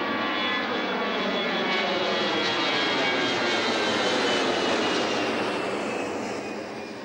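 Twin-engine jet airliner climbing overhead, its engine noise falling in pitch as it passes, fading out near the end.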